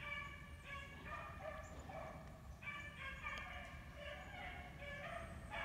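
Faint, drawn-out baying of several hunting dogs in the distance, one call after another with little break. The pack is running a trail, which the hunter hopes is a rabbit.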